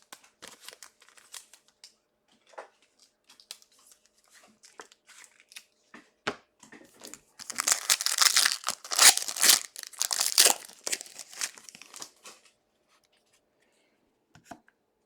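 Crinkling and rustling of plastic card packaging and sleeves as trading cards are handled, in scattered short rustles with a louder, denser stretch of crinkling in the middle.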